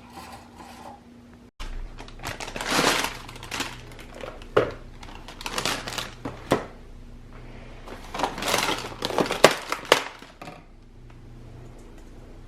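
Rustling and light clattering of household items being handled, in several short bursts with pauses between them.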